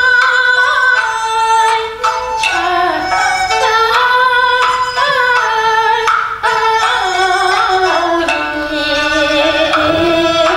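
Kunqu opera music: a female voice sings a slow melody of long, wavering held notes over instrumental accompaniment.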